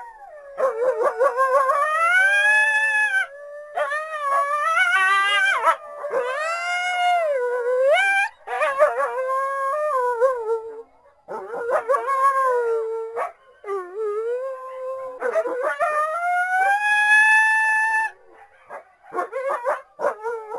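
Coyotes howling and yipping, several voices overlapping in long wavering howls that slide up and down in pitch, broken by brief pauses. Near the end come a few shorter, quieter yips.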